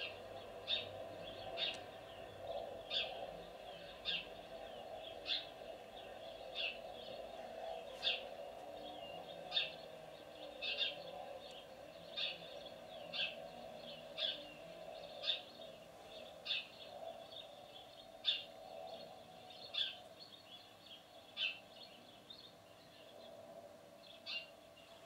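Male house sparrow chirping over and over: short single chirps at a steady rate of about one a second.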